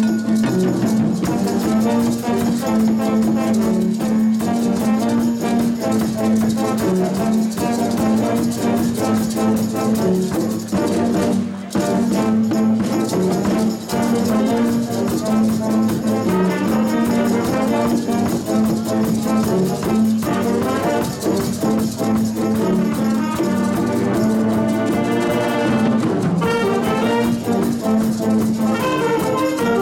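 A middle school jazz band playing live, with a saxophone section of baritone, tenor and alto saxophones and a brass section of trumpets and trombones.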